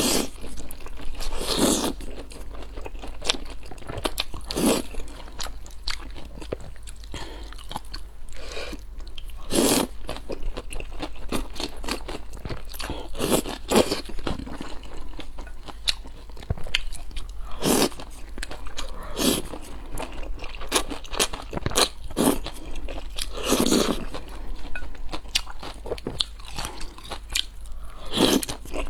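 Close-miked eating: crunchy bites and chewing, with a run of sharp crackles and a louder crunch every second or two.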